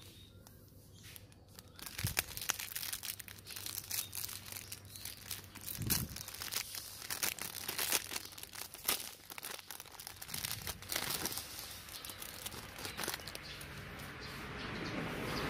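Foil pouch of a self-heating hot pot's heating pack crinkling and tearing as it is torn open by hand, in dense crackles from about two seconds in. Near the end it turns to a smoother, steadier rustle as the fabric-covered heating pad comes out of the foil.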